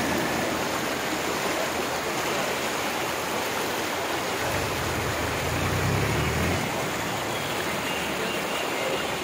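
Brahmaputra floodwater rushing over a road in a fast, foaming current: a steady rushing of water, with a low rumble joining in for about two seconds midway.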